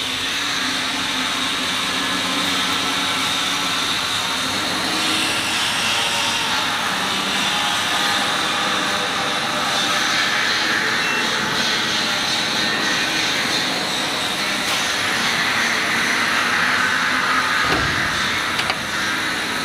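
CO2 laser cutting machine's exhaust fan and air-assist blower running, a steady rushing noise, with a couple of short knocks near the end.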